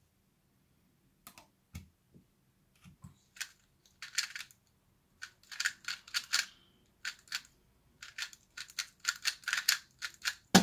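A 2x2 speed cube being turned fast in the hands: quick runs of plastic clicks from the turning layers, a few scattered at first, then dense clusters from about four seconds in. A loud knock comes right at the end.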